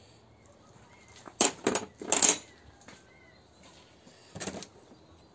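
Short clattering handling noises: three quick ones close together about a second and a half in, and one more about four and a half seconds in.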